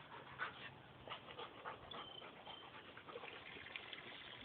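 Faint sounds of a dog, with a thin high whine about two seconds in and scattered soft clicks and rustles.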